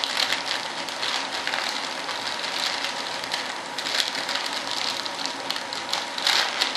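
Plastic vacuum-bagging film crinkling and crackling as it is pressed and worked by hand into the mold corners, with bursts of crackle about 4 and 6 seconds in. A vacuum pump runs steadily underneath, drawing the bag down.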